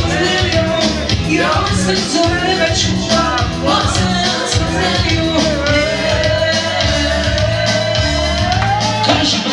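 Live party band music with a steady beat and bass line; a melody note is held for several seconds in the second half and breaks off about nine seconds in.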